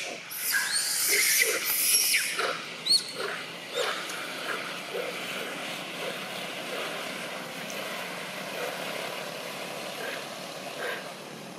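Macaques calling: loud, harsh, hissing shrieks and squeals in the first couple of seconds, with a sharp rising-and-falling squeal about three seconds in. After that the sound settles to a quieter, steady background hiss.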